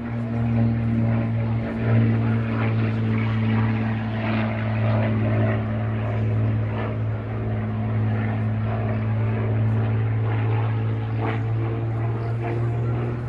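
Piston-engined propeller aircraft flying over, its engines making a steady, low, even drone.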